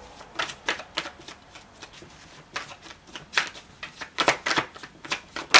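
Tarot deck being shuffled by hand: a string of irregular card slaps and flicks, the sharpest just before the end.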